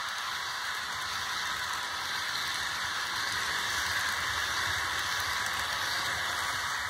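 Steady hissing rush from a running HO scale Broadway Limited Paragon 4 ES44AC model diesel locomotive with its onboard sound on, over a faint low hum. It grows slightly louder toward the end as the train comes closer.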